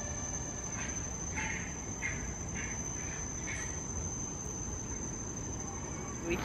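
Tropical garden ambience: a steady high-pitched insect drone, with a bird calling about five times in a row in the first half, over a low background rumble.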